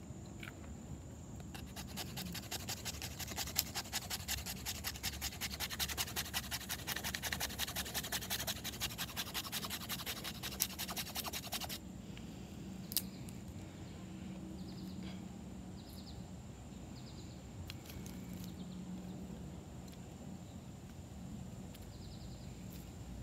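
Knife blade scraping and shaving a fatwood stick into kindling, with quick even strokes of about four or five a second. The scraping stops suddenly about halfway through, leaving only a few light taps and rustles as the shavings and sticks are handled.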